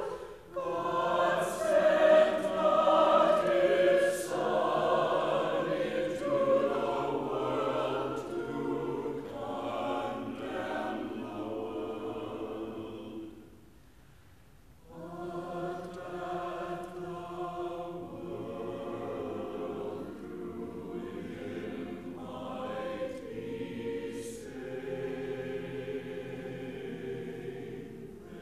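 A mixed church choir singing, loudest in the first few seconds. The singing breaks off briefly about halfway through, then resumes more quietly.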